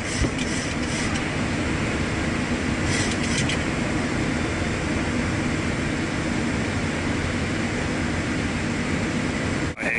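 Steady rush of airflow and air conditioning with a low hum in a Boeing 737-800 flight deck during approach, with one brief knock just after the start and a faint patter of clicks about three seconds in.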